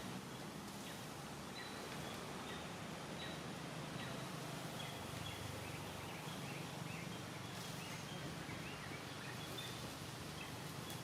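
Steady outdoor background noise with a low hum, and many short, faint, high chirping calls scattered through it, more of them in the second half.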